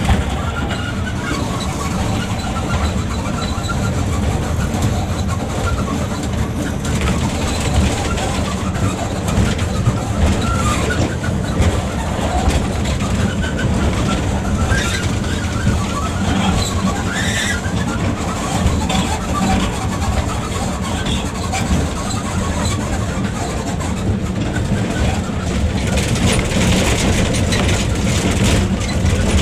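Toy train running with a steady engine drone, with people's voices faintly in the background.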